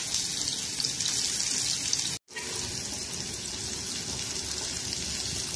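Sliced bitter gourd sizzling in hot olive oil in a nonstick frying pan, a steady hiss. The sound cuts out for a moment about two seconds in.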